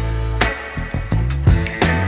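Instrumental background music, with a sustained low bass line and drum hits.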